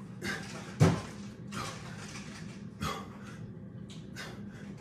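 A man breathing hard through press-ups: short, forceful breaths out about every second or so, the loudest about a second in, over a steady low hum.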